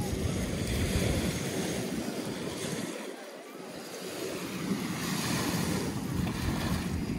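Small lake waves breaking and washing up on a sandy shore, with wind buffeting the microphone. The wind rumble drops away for a moment about three seconds in.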